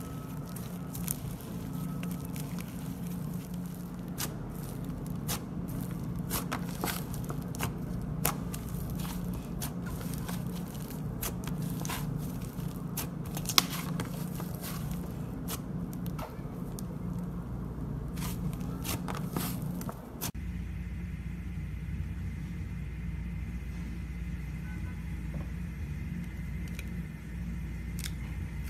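Clay slime being squished and stretched by hand, with many small sticky crackles and pops over a steady low hum. About twenty seconds in the sound changes abruptly to a stretch with far fewer pops.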